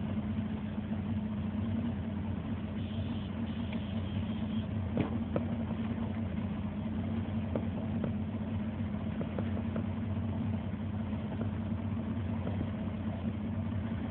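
Boat's outboard motor running steadily, a constant low drone that neither rises nor falls.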